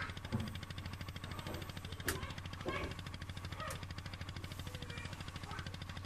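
A boat engine chugging steadily in a rapid, even beat, with a couple of sharp clicks over it.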